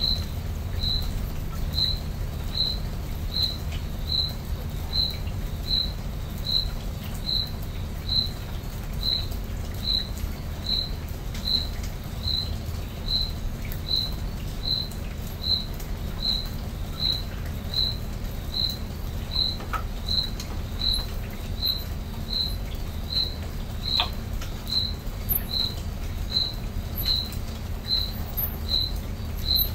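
A cricket chirping at a steady rate, one short high chirp a little more than once a second, over a low, steady rumble.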